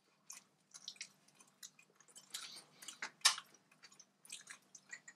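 People chewing and biting into pizza baguette: irregular short, wet mouth sounds, with one louder bite about three seconds in.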